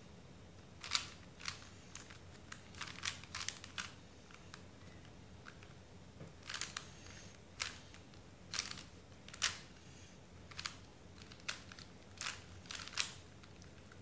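Plastic 3x3 Rubik's cube being turned by hand: sharp clicks of the layers snapping round, in irregular runs of quick turns with short pauses between.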